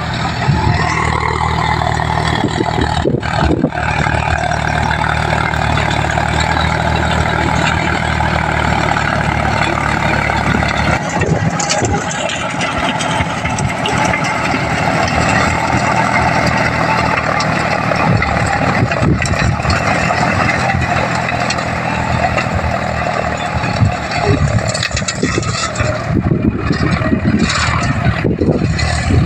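John Deere 5050D tractor's three-cylinder diesel engine running steadily under load while it drives a Mahindra Gyrovator rotary tiller, whose blades churn through dry soil.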